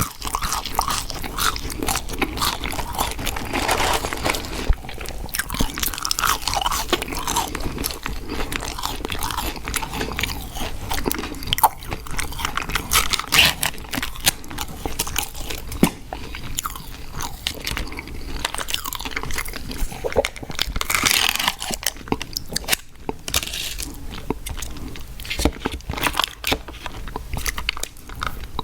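Close-miked chewing and crunching as a person eats fast food: dense wet crackles and crisp clicky bites.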